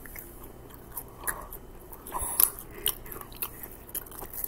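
Close-up chewing and biting of McDonald's french fries right at the microphone, with irregular mouth clicks.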